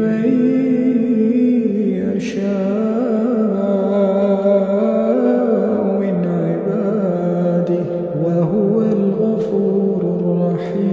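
Slow melodic vocal chanting, one voice drawing out long held notes and sliding gently between them.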